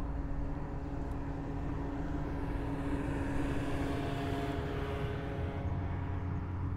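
A passing engine: a steady low hum with a hiss that swells in the middle and eases off near the end.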